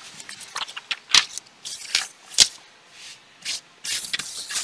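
Handling noise on a workbench: several sharp clicks and taps as a tablet and a small screwdriver are moved and set down, then paper sheets sliding and rustling under a hand near the end.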